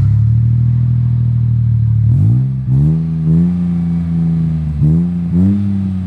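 Suzuki Bolan van's small four-cylinder engine running through an aftermarket dual exhaust, idling fast just after starting. From about two seconds in it is revved in several short throttle blips, each rising and then falling back.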